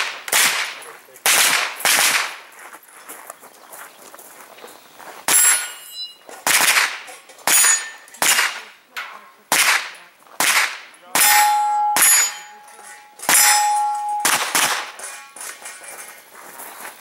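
Pistol-caliber carbine firing a string of about fifteen single shots at an irregular pace, often a second or so apart, with some quick pairs. Several hits set steel targets ringing, most clearly in the second half.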